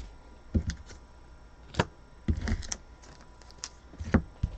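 Trading cards being handled on a table: a handful of separate light taps and clicks, with a brief rustle a little past the middle.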